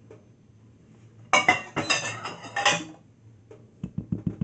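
Frosting being scraped out of a ceramic bowl with a spatula: a dense stretch of clattering clinks and scrapes, followed near the end by a quick run of dull taps, about six a second.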